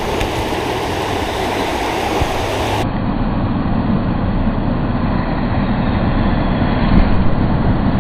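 Steady rushing of a shallow, rocky river riffle, heavy in the low end; the sound turns duller about three seconds in.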